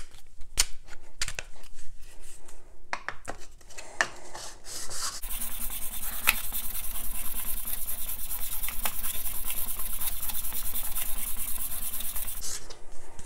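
Steel card scraper (Bahco) rubbed rapidly back and forth on the 1000-grit side of a Trend diamond sharpening stone: a steady, gritty, rhythmic scraping, which is the scraper's flat face being smoothed on the fine grit. A few light clicks and knocks come first; the scraping starts about five seconds in and stops shortly before the end.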